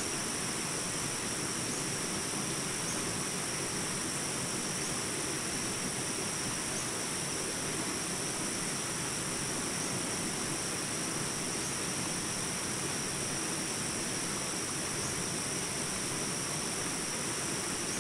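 Steady background ambience: an even hiss with a continuous high-pitched ringing on top, unchanging throughout.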